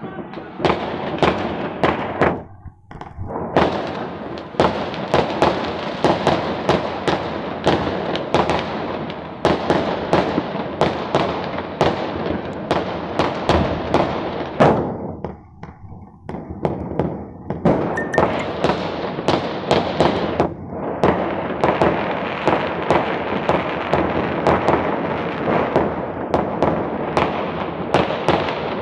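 Fireworks and firecrackers going off across a city, a dense, near-continuous crackle of bangs and pops, with short lulls a few seconds in and again about halfway through.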